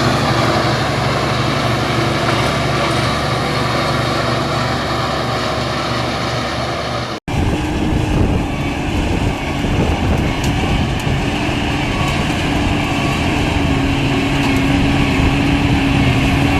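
Bulldozer diesel engines running steadily, in two separate shots joined by an abrupt cut about seven seconds in.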